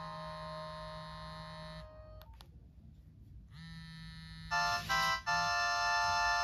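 Nokia X1 ringtones playing: one synthesized tune ends on a held chord that cuts off about two seconds in, followed by two short clicks. After a short gap the next ringtone begins and gets louder about four and a half seconds in.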